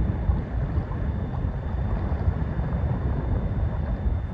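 Gusty wind rumbling and buffeting on the microphone, over small wind-driven waves washing onto a sandy lakeshore.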